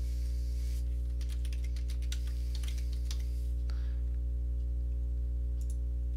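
Computer keyboard typing, a quick run of key clicks for about three and a half seconds, then a couple of single clicks, over a steady low electrical hum.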